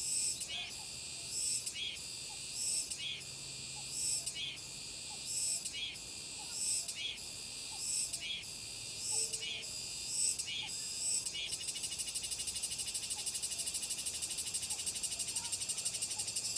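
Cicadas singing in summer: a high, shrill call repeated in regular phrases about every second and a bit, switching about two-thirds of the way through to a continuous, rapidly pulsing buzz.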